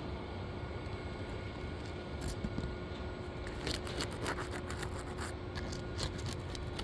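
Scraping and short clicks of work on 3-tab asphalt shingles as a shingle is pried loose to get at its nails, coming in quick bursts through the second half over a steady low rumble.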